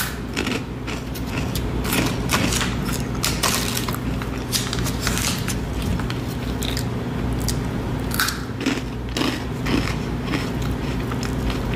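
A person biting and chewing a thin, crunchy stick snack: irregular sharp crunches, several a second, over a steady low hum.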